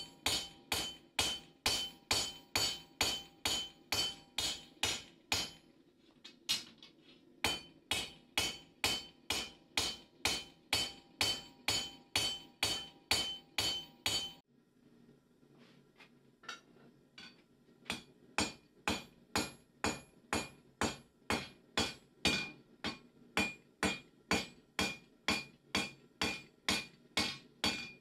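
Hand hammer striking a knife blade on a steel anvil in a steady rhythm of about three blows a second, each blow ringing. The blows soften briefly about six seconds in and again around the middle before picking back up.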